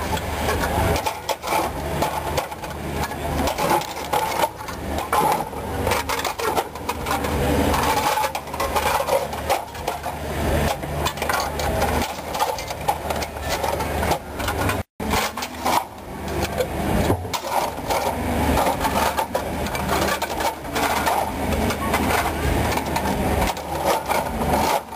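Small metal popsicle mould tubes clinking, knocking and scraping against a stainless-steel mould tray as they are set into or pulled from it, in many quick irregular knocks.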